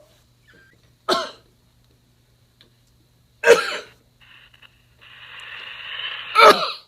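A man coughing hard three times, each a short sharp burst a couple of seconds apart, as part of a staged coughing fit. A rising hiss joins near the end.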